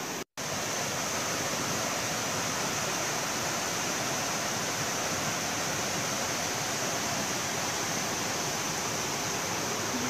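Steady rush of a small waterfall on the Rufabgo stream pouring down rock. The sound cuts out for a split second just after the start, then runs on unchanged.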